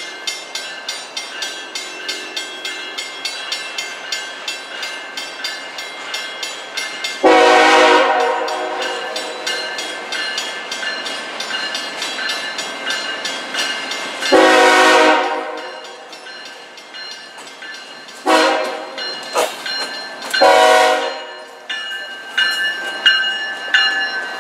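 CSX freight locomotive horn sounding the grade-crossing signal: two long blasts, a short one and a final long one. A crossing bell rings steadily at about three strikes a second under the horn. Near the end the lead diesel locomotives pass close by.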